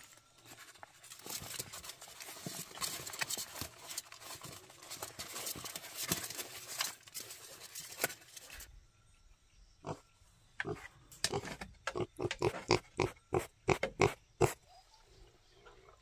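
Pigs grunting, with a run of short grunts in quick succession in the second half.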